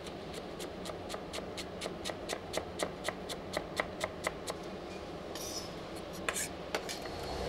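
Chef's knife chopping Italian parsley on a wooden cutting board: quick, even strokes about four a second. About five seconds in the chopping stops, giving way to a few scattered taps and soft brushing as the chopped herbs are gathered together.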